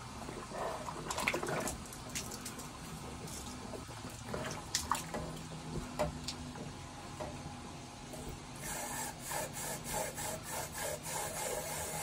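A horse drinking from a water bowl: scattered wet slurps and drips, then steady gulping about three times a second near the end.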